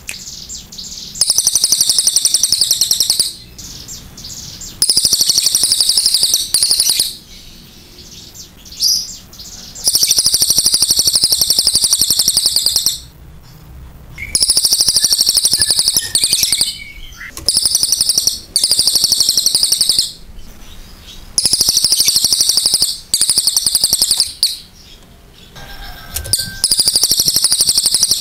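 Crested jay (cililin) calling in long, high-pitched bursts of rapidly repeated notes, each one to three seconds long, about nine in all with short pauses between them.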